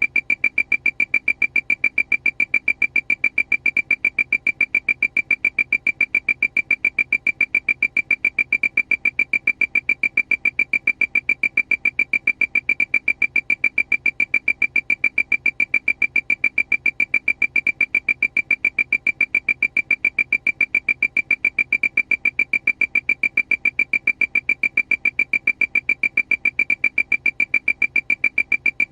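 Aircraft alarm: a high electronic beep repeating rapidly and evenly, several beeps a second, without change.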